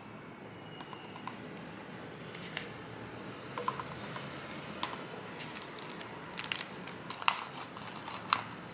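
Wooden stir stick scraping and tapping against a thin plastic cup as pigment is mixed into wet Jesmonite, with light plastic crinkling. Scattered sharp clicks come more often in the last few seconds, over a low steady hiss.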